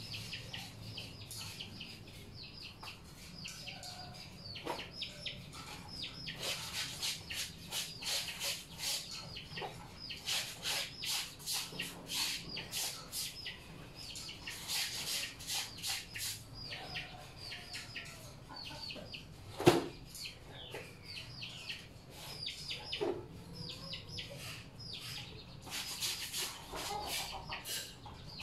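Clothes being scrubbed by hand in a washtub: bouts of quick, rhythmic rubbing strokes of wet fabric, with a single sharp knock about twenty seconds in.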